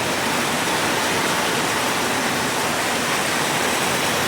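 Heavy tropical downpour: steady, loud rain hissing and pouring, with runoff water flowing.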